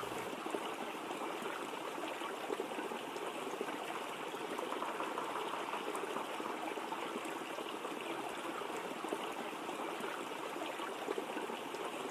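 Waterfall running: a steady, even rush of falling water with no change.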